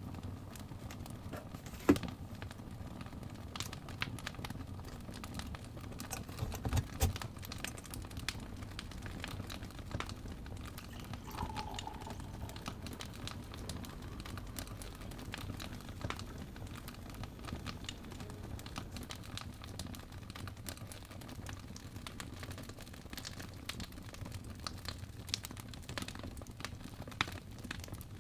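Fireplace crackling: irregular pops and snaps over a low steady rumble of the fire, with one louder pop about two seconds in.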